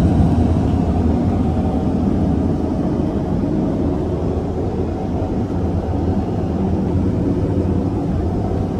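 Steady cabin noise of a Boeing 787-10 airliner in flight: an even, low rumble of airflow and engines with no breaks.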